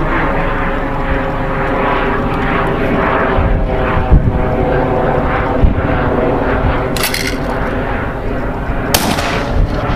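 A steady engine drone with a slightly pulsing tone runs throughout. Near the end come two short, sharp cracks about two seconds apart.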